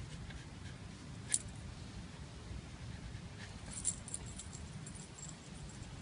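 Faint light metallic jingling: a single clink about a second in, then a run of quick small clinks in the second half, over a low steady rumble.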